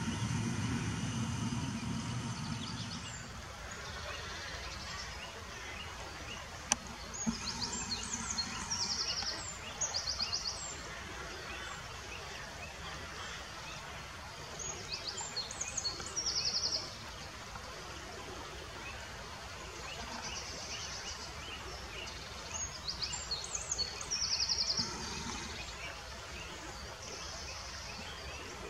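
River water running steadily over shallow rapids, with a songbird singing three bouts of short, quickly repeated phrases, each ending in a trill, about eight seconds apart. A low hum fades out in the first few seconds.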